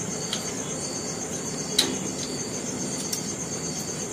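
Insects chirping steadily in a high, rapidly pulsing trill, with a few short sharp clicks, the loudest a little under two seconds in.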